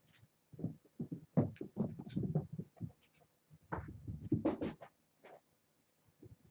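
Irregular scratching and rustling in short bursts with brief pauses.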